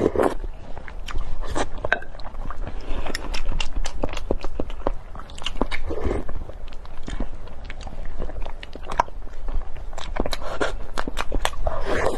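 Close-miked eating: chewing with many sharp wet mouth clicks, and a few longer slurps from a spoon at intervals.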